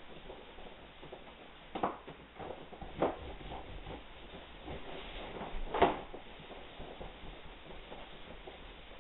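Wet rag rubbing over an inflatable vinyl wolf toy, the vinyl giving short squeaks and creaks under the hand. Three louder ones come about two, three and six seconds in, the last the loudest.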